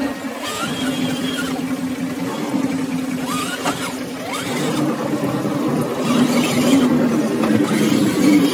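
Electric motor and gearbox of a scale RC crawler truck whining steadily as it crawls up a dirt slope, getting louder in the second half.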